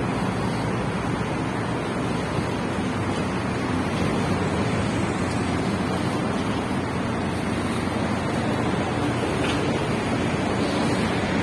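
Steady rushing noise of road traffic mixed with wind on the microphone, with no distinct events.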